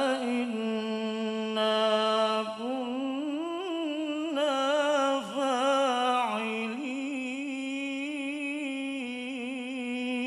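A man reciting the Quran in the melodic mujawwad style through a microphone, drawing out one long vowel in an ornamented, wavering melisma. The pitch climbs after about two and a half seconds, turns through quick trills, then holds steadier near the end.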